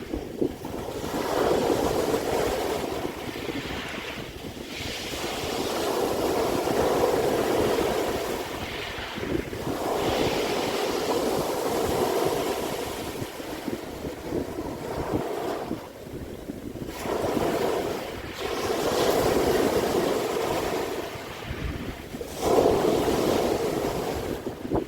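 Sea waves breaking and washing up the shore, the surge rising and falling every few seconds.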